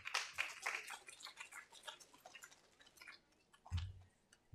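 A run of small clicks and taps, densest in the first second and thinning out, with a low thump near the end.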